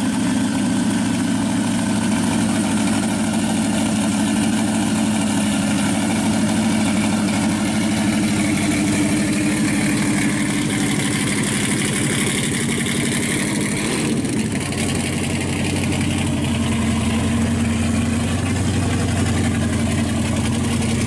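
Supercharged V8 of a 1971 Chevy Vega panel idling steadily through its side pipes. About two-thirds of the way through, the sound becomes deeper.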